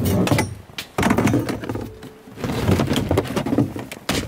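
Split firewood logs clunking and a plastic milk crate scraping and bumping as the loaded crate is dragged and lifted out of an ATV's cargo bed, in three rough stretches of knocking and scraping with a sharp knock near the end.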